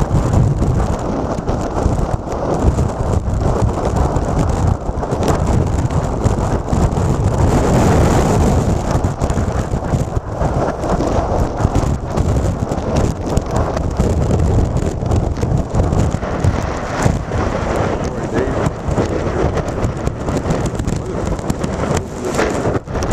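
Strong, gusty wind buffeting the microphone in a continuous low rumble, with heavy surf and rain beneath it.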